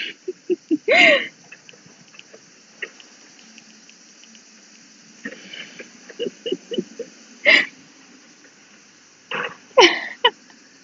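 A woman laughing in short bursts and giggles, off and on. The louder breathy bursts come about a second in, at about seven and a half seconds, and near the end.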